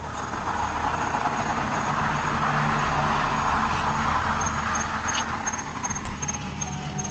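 A vehicle passing by, its noise swelling to a peak a few seconds in and then fading, over a low steady musical drone.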